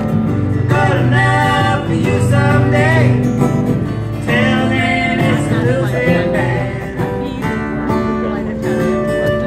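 A live folk duet: voices singing over acoustic guitar. Near the end the singing gives way to steady held notes.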